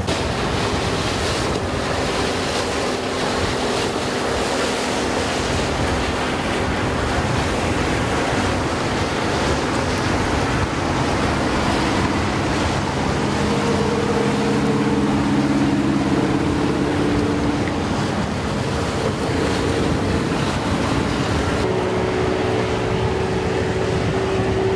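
Wind rushing over the microphone and water washing along the hull of a sailboat motoring slowly, with the steady hum of its Yanmar inboard diesel underneath; the hum shifts in pitch about halfway through and again near the end.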